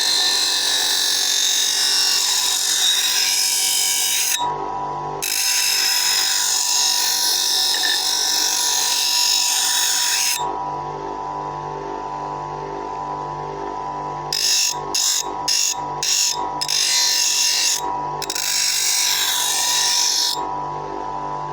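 Bench grinder motor running steadily while a scissor blade is ground on the wheel: two long spells of high grinding hiss, a pause with only the motor's hum, then a quick run of short touches and two more longer passes.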